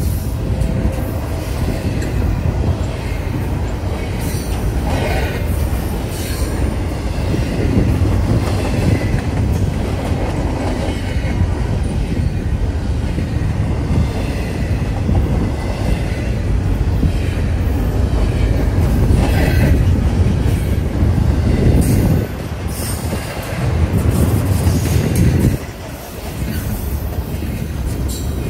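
Double-stack intermodal freight train's container well cars rolling past close by: a steady heavy rumble with wheel clatter and brief wheel squeals now and then. The loudness dips briefly twice near the end.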